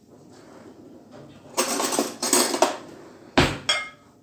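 Ceramic plates clattering and scraping on a kitchen counter: about a second of loud scraping and clinking, then a sharp knock and a smaller click as a plate is picked up.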